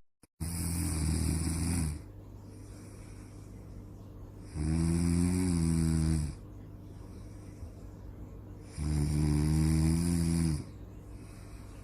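A person snoring: three loud, buzzing snores about four seconds apart, each lasting under two seconds, with a steady low hum between them.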